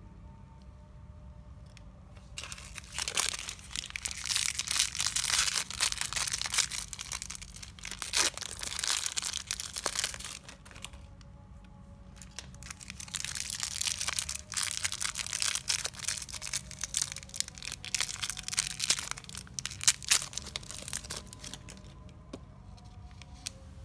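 Crinkly plastic-foil wrappers rustling and crumpling in hands, in two long spells with a short quiet gap between them.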